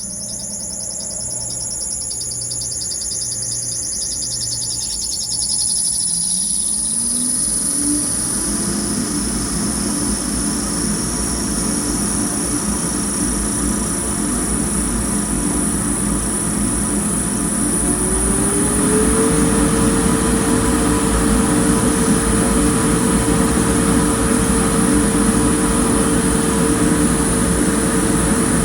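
Fan motor running and speeding up in two steps: its hum rises in pitch about six seconds in and again about eighteen seconds in, with a steady high-pitched whine above it throughout. A noise the owner treats as abnormal.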